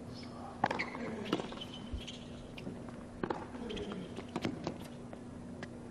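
Tennis rally on a hard court: the ball struck back and forth by rackets, a string of sharp pops roughly a second apart.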